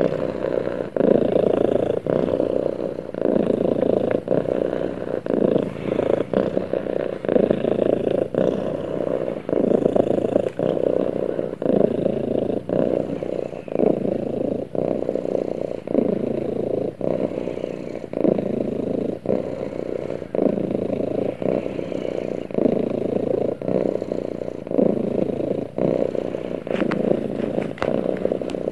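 Orange tabby cat purring steadily, a low continuous rumble that swells and briefly dips with each breath, about once a second.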